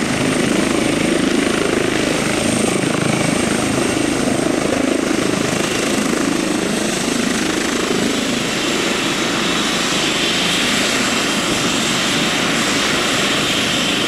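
Twin-turbine light helicopter running close by: steady rotor and engine noise with a thin high whine above it.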